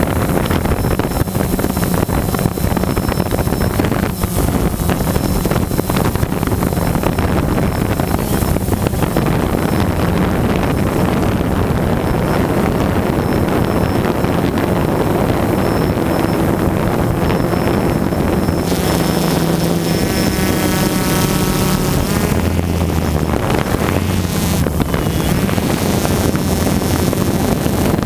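DJI Phantom quadcopter's motors and propellers buzzing steadily as heard from the GoPro on the drone itself, mixed with wind buffeting the microphone in flight. The motor pitch shifts for a couple of seconds about two-thirds of the way through.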